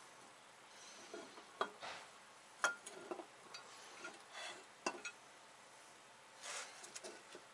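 Scattered light metal clinks and knocks as a steel wheel-bearing spindle and small parts are shifted and set on the plates of a hydraulic shop press, with some soft rubbing in between. The sharpest clinks come about two and a half and five seconds in.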